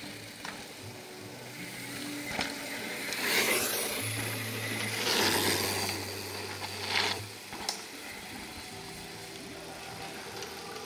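Downhill mountain bikes riding past on a dirt track. Tyre noise on dirt swells three times as riders go by, with the clicking and rattle of the bikes.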